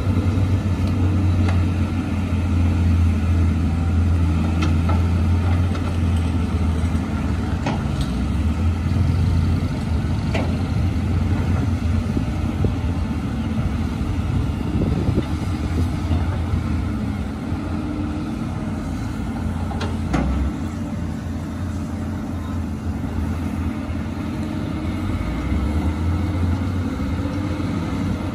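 Diesel engines of Caterpillar excavators and a bulldozer running steadily under load while digging, a low rumble with a few sharp knocks. The rumble eases about twenty seconds in.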